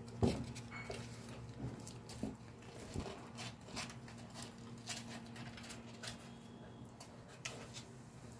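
Light rustling and scattered clicks from a cardboard nest box lined with cloth and fur, with one sharper knock just after the start, over a steady low hum.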